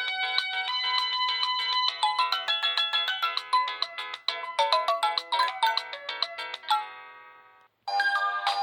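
Samsung cellphone melodic ringtone playing a quick run of bright electronic notes, ending with a fading tail about seven seconds in; after a brief silence, another ringtone begins near the end.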